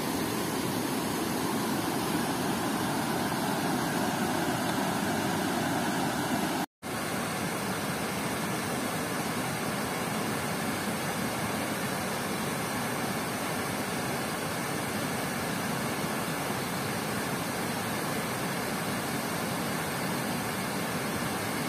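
Water pouring over a concrete dam spillway and churning white below it, a steady rushing noise, broken once by a brief dropout about seven seconds in.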